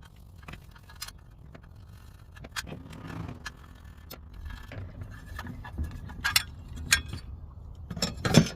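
Irregular light clicks and metal clinks of hand tools and engine parts being handled, with a few sharper knocks near the end, the loudest just before it ends.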